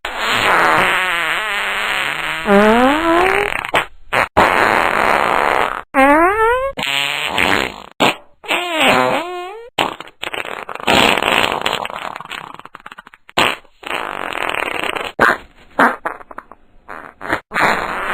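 A rapid series of fart noises, one after another with short breaks between them; a couple of them rise in pitch as they go.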